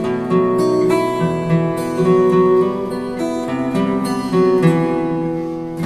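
Steel-string acoustic guitar played fingerstyle: a melody of plucked notes over ringing bass notes.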